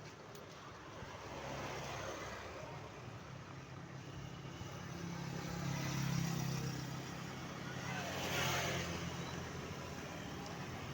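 Road traffic passing close by: a vehicle's engine hum builds and fades, and a passing vehicle's rush of tyre and wind noise peaks about eight seconds in. No multi-tone telolet horn sounds.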